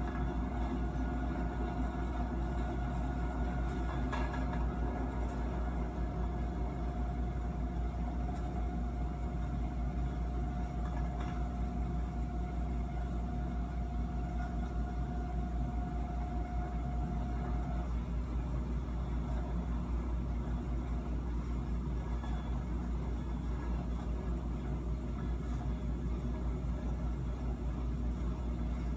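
Steady low rumble of a train running along the track, from a cab-view video played through a screen's speaker and picked up by a phone. A faint steady tone runs over it and stops about two-thirds of the way through.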